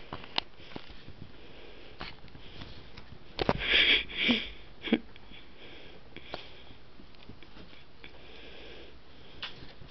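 A few short, noisy sniffs close to the microphone about three and a half seconds in, among scattered small clicks and handling taps.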